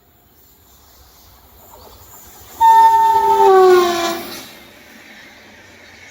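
Passing train sounding its horn for about two seconds, the horn's pitch sliding down as it goes by, over the running noise of the train that builds as it approaches.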